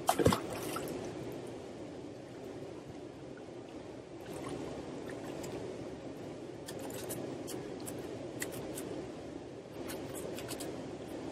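A barbel splashes once, loudly, as it goes into the river at the bank, followed by steady running-water noise with light drips and scattered small ticks of water and handling.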